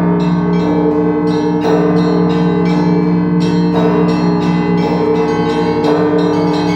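Russian Orthodox church bells rung in the traditional zvon style by one ringer: small bells struck in a quick rhythmic pattern over the steady hum of the larger bells, with a heavier bell stroke about every two seconds.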